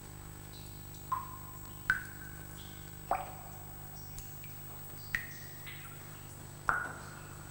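Single water drops falling into water, five slow irregular plops, each a short pitched plink. A steady low hum runs underneath.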